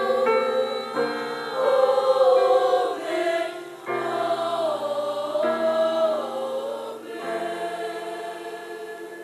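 Boys' choir singing in harmony, moving through sustained chords. Near the end it settles on a long held final chord that fades away.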